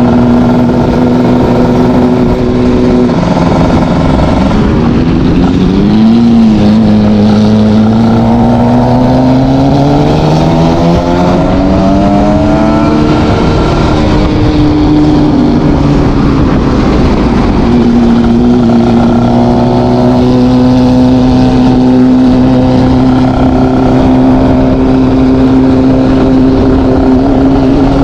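ZX 300 R motorcycle engine and exhaust running at high revs. The engine note holds steady, then dips and climbs slowly through the middle, and settles into a steady note again for the last third.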